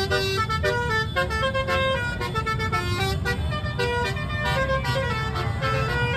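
Telolet basuri horn, a set of tuned vehicle horns, playing a quick melody of short steady notes that jump from pitch to pitch, over a constant low rumble.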